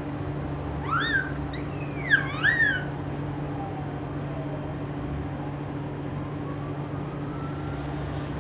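A baby's high-pitched squeals, a few rising and falling cries in the first three seconds, over a steady low mechanical hum.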